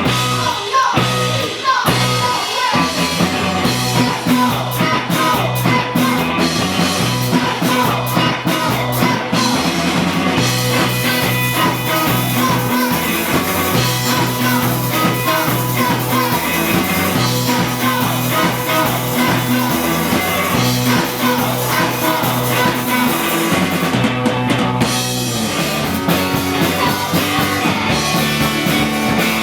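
Rock music with a steady bass line, guitar, drums and singing, playing continuously.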